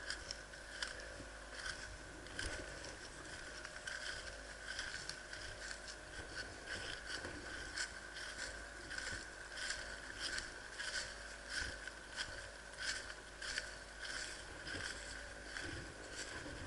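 Footsteps and rustling of clothing and gear, a soft crunch or scrape roughly every 0.7 seconds at a walking pace, over a faint steady high hum.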